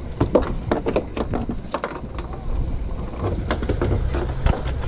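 Wind and sea noise around a small fishing boat: a steady low rumble, with a scattering of short sharp clicks and knocks from handling gear on deck.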